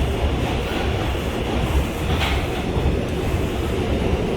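R142 subway car running slowly through a track switch, heard from inside the car: a steady low rumble of wheels on rail, with a short higher-pitched noise about halfway through.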